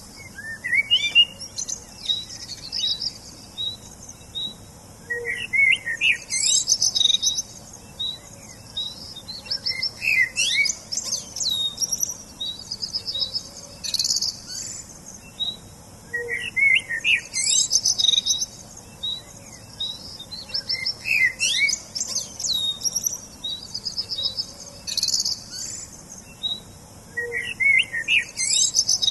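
Several songbirds chirping and singing: quick high chirps, trills and fast down-slurred whistles overlapping, with the same passage of song repeating about every eleven seconds.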